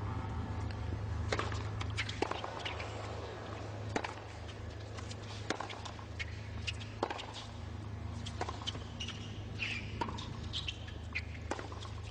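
Tennis rally: sharp pops of rackets striking the ball and of the ball bouncing, about one every second or so, over a steady low hum. A few brief high squeaks come near the end.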